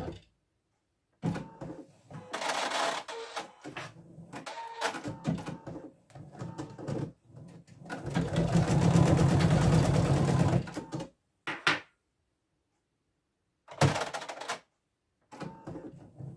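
Husqvarna Viking Designer Diamond embroidery machine stitching an appliqué in several runs broken by silences. The longest and loudest run, about eight seconds in, lasts nearly three seconds as a fast, even patter of needle strokes.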